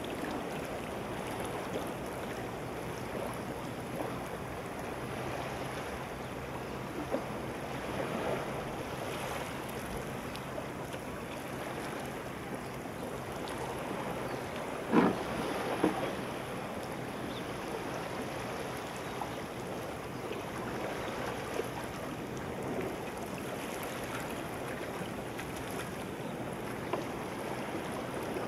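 Shallow seawater gently lapping with wind on the microphone, a steady hiss, under a faint low hum in the first half. Two short knocks come about halfway through.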